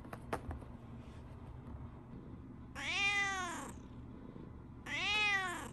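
Brown tabby cat meowing twice, each call about a second long and arching up then down in pitch.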